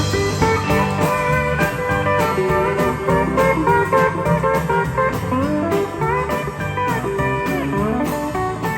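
Country song's instrumental break: a guitar lead plays a melody with sliding, bending notes over a steady band backing with a beat.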